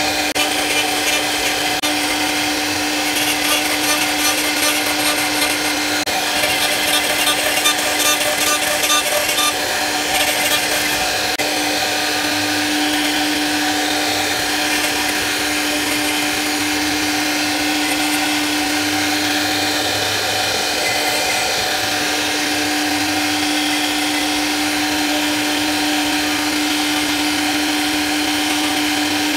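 CNC router spindle running with a steady whine as its small carving bit cuts a floral relief into a wooden door panel. A rapid chatter rides on the cut from about three seconds in until about ten seconds in, then the cutting goes smoother.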